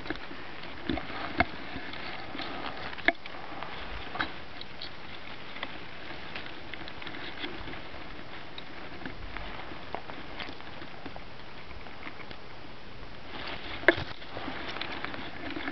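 Steady outdoor hiss with scattered short clicks and rustles from a handheld camera being handled close among grass stems, a sharp click near the end followed by a patch of small rustles.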